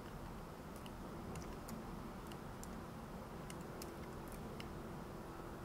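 Irregular, scattered clicks of a computer mouse and keyboard being worked, over a low steady background hum.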